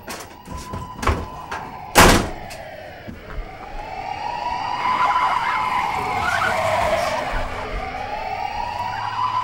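Police siren wailing, its pitch slowly rising and falling, growing louder from about three seconds in. Before it builds, a few sharp knocks and a loud thump come about two seconds in.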